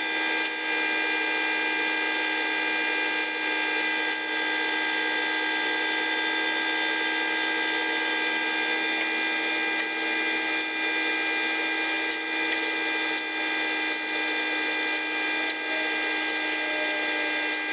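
A steady machine hum made of several held tones runs throughout. Over it, masking tape and masking paper crackle and rustle as they are handled and pressed down, most busily in the last few seconds.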